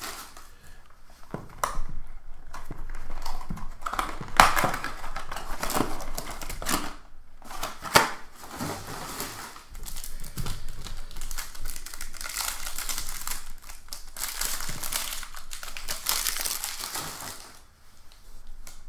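Plastic shrink wrap on a trading card box crinkling and tearing as the box is unwrapped and opened, with a couple of sharp clicks, about four and eight seconds in.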